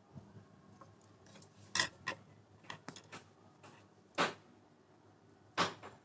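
Hand-embroidery work on cloth stretched in an embroidery hoop: a string of short rasps and clicks from needle, thread and fabric being handled, the two longest about four and five and a half seconds in.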